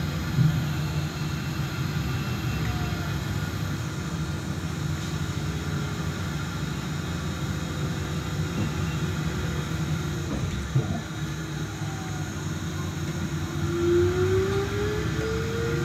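Ride noise inside a Solaris Trolino 12 trolleybus on the move: a steady low rumble with a couple of short knocks. Near the end the electric traction motor's whine rises in pitch as the trolleybus accelerates.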